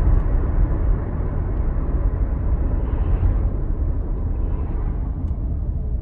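Road and tyre noise heard inside a 2015 Nissan Murano's cabin as it slows from highway speed, a steady low rumble that gradually gets quieter as the speed drops.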